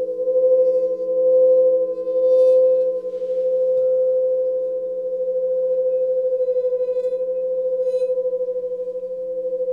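Alchemy crystal singing bowls sounding layered, sustained tones at 432 and 528 Hz. The tones swell three times in the first few seconds, then hold steadier, with a few faint higher rings over the top.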